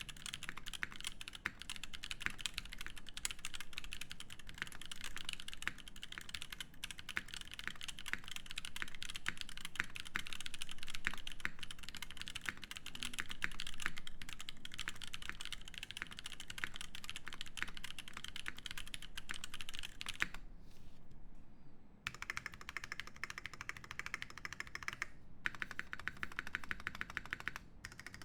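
Typing on a Haus65 mechanical keyboard with unlubed Lumia switches, an aluminium plate and GMK Shoko keycaps: a dense, fast stream of keystroke clacks. It breaks off for about two seconds after about twenty seconds, then resumes in shorter runs with brief pauses.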